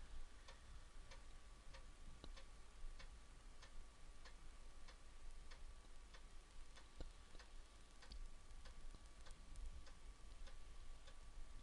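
Commodore 1541-II floppy drive's read/write head stepping from track to track while a disk is dumped: a faint, even click about every 0.6 seconds.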